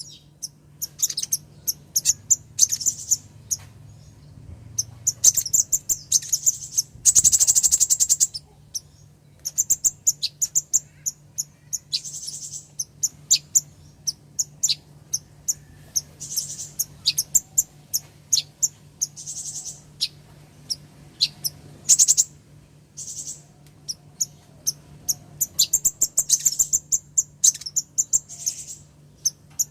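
Female sunbird (kolibri ninja) calling with rapid, high-pitched thin chips and short trills, including one longer rattling trill about seven seconds in; a faint steady low hum runs underneath.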